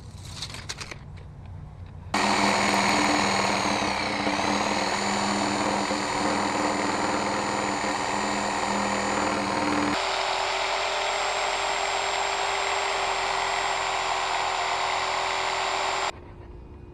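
Corded reciprocating saw cutting through a weathered wooden pallet board, running steadily from about two seconds in and stopping shortly before the end, with a few light handling clicks before it starts.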